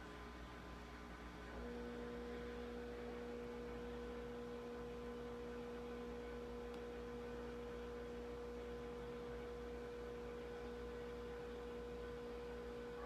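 Faint steady electrical hum: a single unchanging tone that switches on about a second and a half in and holds, over low background noise.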